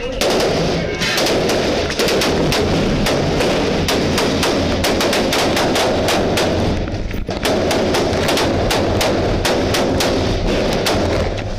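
Automatic rifle fire in rapid, continuous volleys, many shots in quick succession, with a brief lull about seven seconds in.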